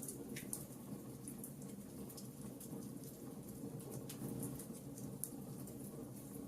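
Fire crackling in a fireplace: many small, sharp crackles and pops over a steady low rush of burning.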